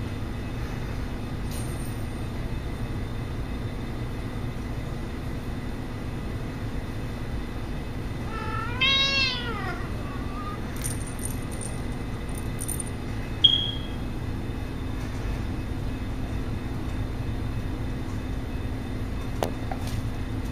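Persian kitten meowing once, a single call that rises and falls, about nine seconds in, over a steady low background hum. A brief high-pitched chirp follows a few seconds later.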